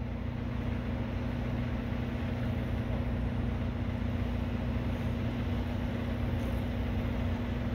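A steady low mechanical hum over an even background noise, unchanging throughout.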